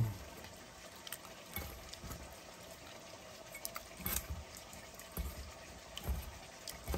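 Wet squelching and slopping as a hand squeezes and kneads raw buffalo meat in blood and raksi in a steel bowl, working the liquor into the meat. A few soft thumps are scattered through it.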